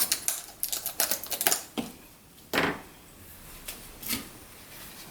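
Rapid clicks and taps of small plastic shipping boxes and packaging being handled, crowded into the first two seconds, followed by a couple of single knocks.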